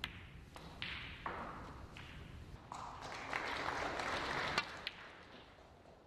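Snooker table sounds: sharp clicks of the cue tip on the cue ball and of balls knocking together, several times. A louder spell of rustling noise comes in the middle.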